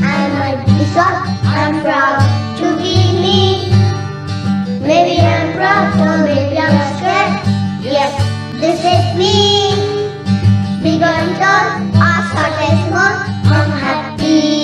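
Young children's choir singing a song together over an instrumental accompaniment with a repeating low bass pattern.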